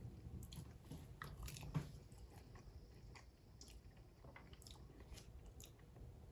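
Faint biting and chewing of crispy fried chicken, a series of small crunches and clicks.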